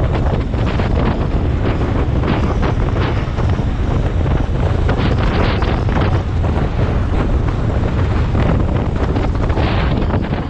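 Loud wind buffeting the microphone, a constant heavy rumble with gusty crackling flutter, dropping sharply right at the end.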